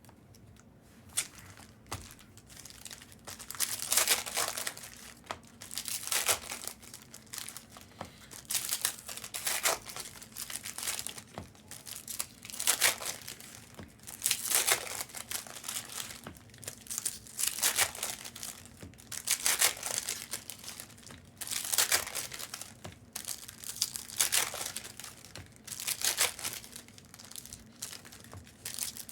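Plastic trading-card pack wrappers being torn open and crinkled, in repeated rustling bursts every second or two.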